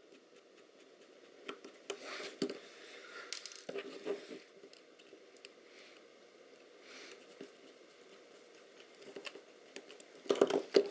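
A small precision screwdriver working tiny screws out of the Lomo LC-A camera's circuit board, with fingers handling the metal and plastic camera body: faint scrapes, small clicks and rustling. A louder cluster of clicks comes near the end.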